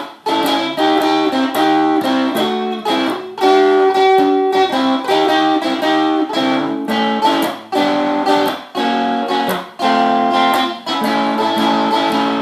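A 1970s Brazilian Tonante electric guitar, cedar-bodied with Wilkinson pickups, playing a blues: rhythmic strummed chords and riffs broken by short pauses.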